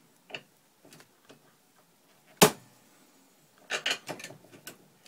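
Shotshell press being worked through the pre-crimp stroke: scattered light clicks, one loud sharp knock about two and a half seconds in, then a quick cluster of clicks and clacks as the shell is handled.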